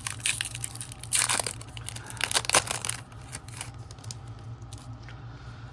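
A plastic trading-card pack wrapper being torn open and crinkled, loudest about a second in and again about two and a half seconds in, then quieter rustling.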